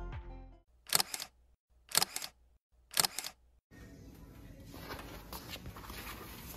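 Camera shutter clicking three times, about a second apart, each a quick double click. Then faint room noise.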